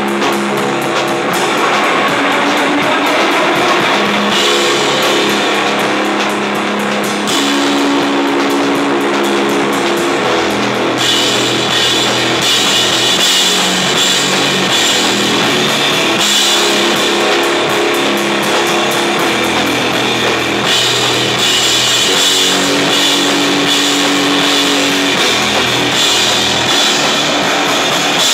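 Live rock band playing loud: electric guitar over a drum kit with cymbals.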